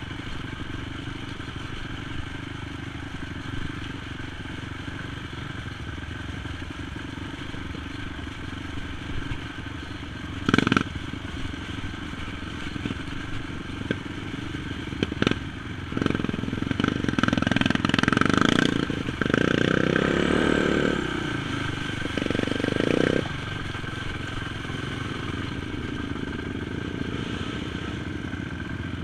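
Quad (ATV) engine running steadily as it rides a rough, muddy trail. There are two sharp knocks at about ten and fifteen seconds in, and a louder, rougher stretch of clatter and engine noise from about sixteen to twenty-three seconds.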